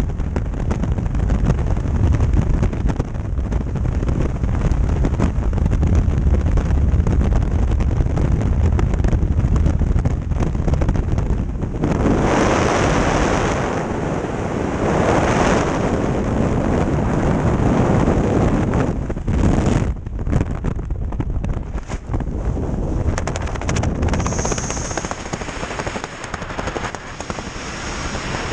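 Freefall wind rushing and buffeting over the camera microphone, a heavy, steady low rush. About twelve seconds in it swells louder and brighter as the parachute deploys, then drops to a weaker, choppier rush with fabric flapping under the open canopy, and a thin high whistle near the end.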